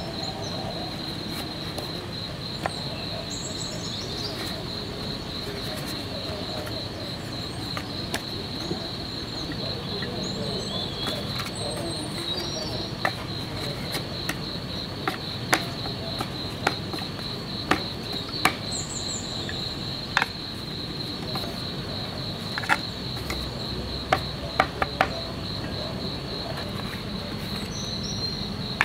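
Crickets giving a steady, high trill, with scattered short sharp clicks of chopsticks tapping an aluminium tray.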